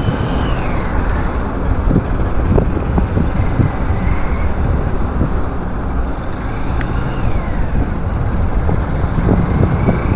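Road traffic noise: a steady low rumble of vehicles in congested traffic, with two faint whines that rise and fall, one at the start and one about seven seconds in.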